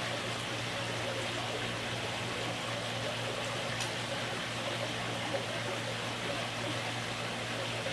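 Steady background hiss with a constant low hum underneath, unchanging throughout, with no distinct events.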